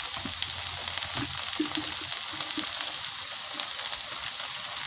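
Boiled potatoes and a lump of butter sizzling in a pot on a gas burner, a steady hiss with fine crackles: the milk has boiled away and the butter is melting in the hot pot.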